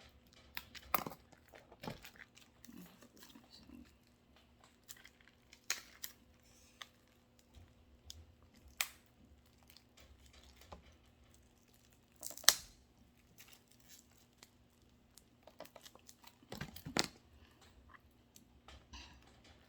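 Packaging of a boxed CD album being handled and opened: intermittent rustling, crinkling and tearing of paper and plastic with scattered clicks and taps, the loudest crackle a little past halfway.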